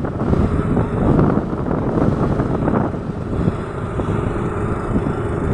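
Loud, gusty wind rumbling on the microphone, an irregular low roar that rises and falls throughout.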